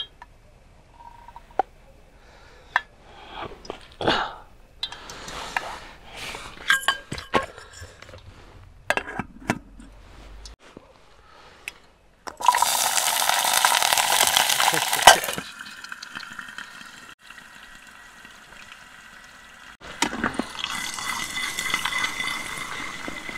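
Chopped onion tipped into hot mustard oil in an aluminium camping pot, frying with a loud sizzle for about three seconds, then sizzling more quietly again near the end. Before that, small clinks and knocks of the pot and oil bottle being handled as the oil is poured in.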